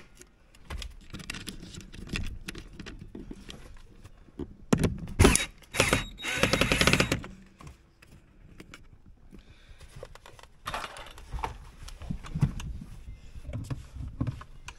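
A screw with a washer and wire loop being threaded into a steering-column hub with a screwdriver: scattered metallic clicks and rattles, with louder bursts of rapid clicking about five and seven seconds in.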